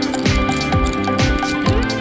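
Background music with a steady beat: an electronic track with a punchy kick drum a little over twice a second under held synth tones.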